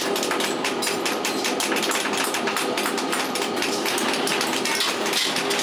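Rapid, irregular metallic tapping and clinking from hand work on steel shovel heads, over a steady machine hum.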